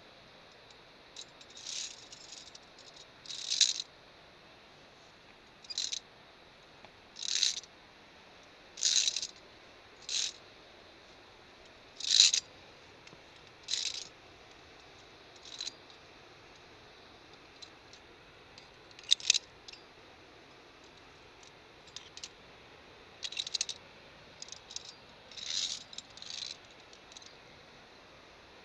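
Via ferrata lanyard carabiners clinking and rattling against the steel safety cable: about a dozen short, high metallic jingles at irregular intervals.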